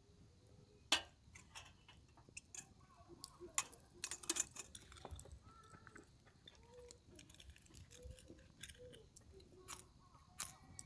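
Eating sounds up close: scattered sharp clicks and taps of tableware, with chewing, the loudest clicks about a second in and around four seconds in.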